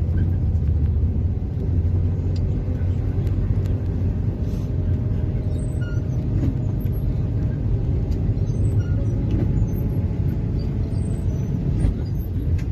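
Moving bus heard from inside the cabin: a steady low engine and road drone.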